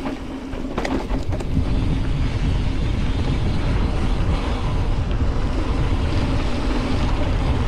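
Mountain bike descending a dirt trail at speed: steady wind noise on the microphone and tyre rumble, with a few sharp knocks from the bike about a second in.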